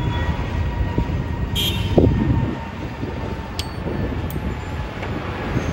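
Deep, steady rumble of a Boeing 777-200ER's twin GE90 jet engines at climb power as the airliner departs overhead, with a brief knock about two seconds in.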